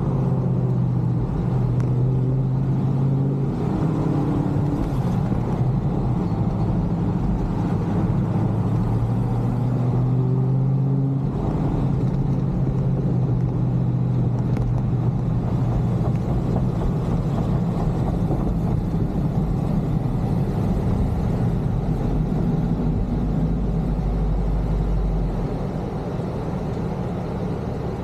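A 6.4-litre Chrysler HEMI V8 with long-tube headers and a Corsa exhaust, running as the car is driven. Its note shifts pitch a few times in the first twelve seconds and drops quieter a few seconds before the end.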